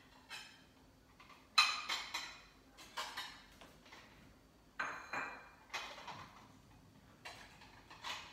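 Dishes clinking and knocking as a bowl is fetched: about a dozen separate sharp clatters of crockery and cutlery, spread unevenly over several seconds.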